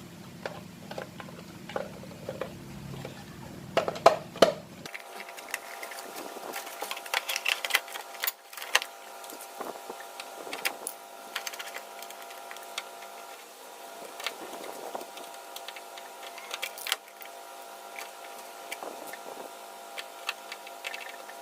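Irregular clicks and knocks of small parts being handled and fitted as refrigerator capacitors are put back in place, over a faint steady hum. A few sharper knocks come about four seconds in and again near seventeen seconds.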